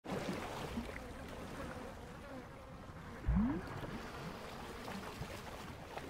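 Swamp ambience of soldiers wading: soft water sloshing and trickling, with a faint insect buzz. About three seconds in, the loudest sound is a low thud with a short upward-sliding tone.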